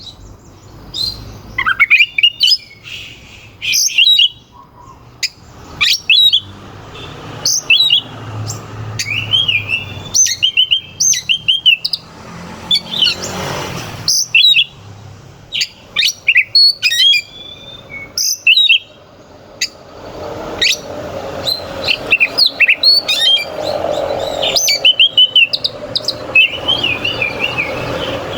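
Oriental magpie-robin (kacer) in full song: a loud, fast string of short, sharp notes mixed with quick warbled and twisting phrases, with brief gaps between bursts.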